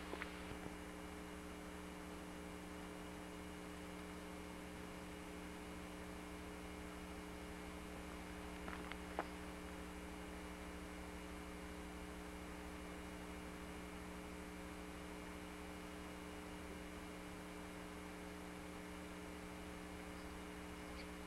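Steady electrical hum with faint hiss from the recording itself, with a couple of faint clicks about nine seconds in.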